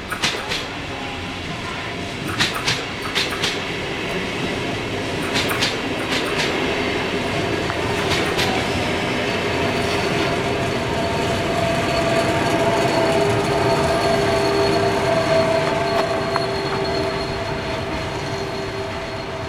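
NSB Class 70 electric multiple unit passing, its wheels rolling with a run of sharp clacks over rail joints and points in the first eight seconds or so. A steady whine then rises over the rolling noise, loudest a little past the middle, and eases off as the train moves away.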